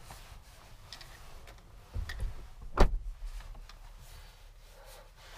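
Handling noises inside a car's cabin: low rustling and a thud, then one short, sharp knock about three seconds in.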